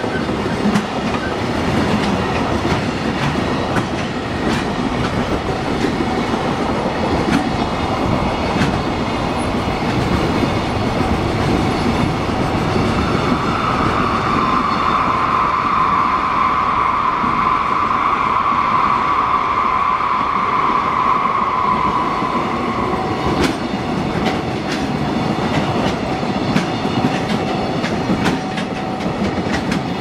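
Container freight wagons rolling steadily through a level crossing, wheels clattering over the rail joints, with a high wheel squeal that swells for about ten seconds in the middle and then stops. The crossing's warning bell rings steadily underneath.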